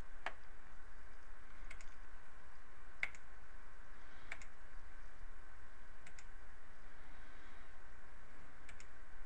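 Computer mouse clicking about six times, spaced a second or more apart, some as quick double ticks, over a faint steady background hum.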